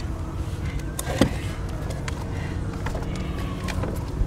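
Tornado rubble being moved by hand: a few sharp knocks and clatters of wood and debris, the loudest about a second in, over a steady low rumble.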